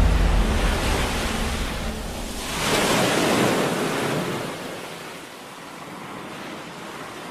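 A low boom, then a rushing noise like surf washing in, swelling about three seconds in and fading away.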